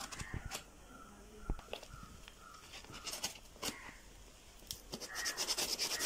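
A knife cutting and scraping through packing tape and plastic wrap on a cardboard box: scattered clicks and scratches, with a quick run of scratchy strokes near the end.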